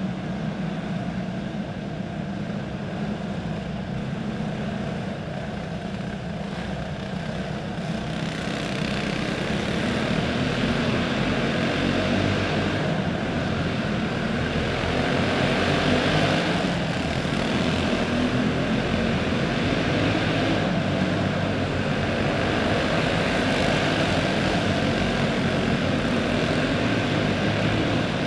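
Racing karts' clone single-cylinder four-stroke engines buzzing together as a small pack laps a dirt oval, growing louder about nine seconds in.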